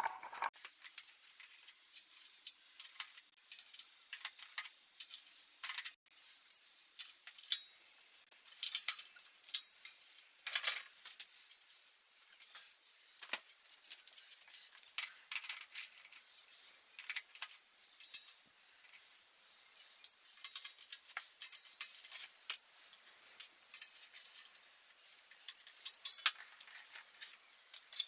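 Light metallic clinks, taps and rattles of hand tools working on a bicycle as its wheels and fenders come off. They come scattered and irregular, with a few sharper clicks near the middle.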